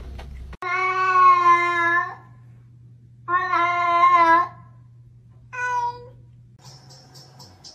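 Domestic cat meowing three times: two long, drawn-out meows, then a short, higher one.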